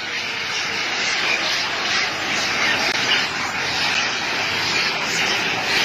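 A large troop of long-tailed macaques screeching and chattering all at once, blending into a dense, continuous din with no single call standing out.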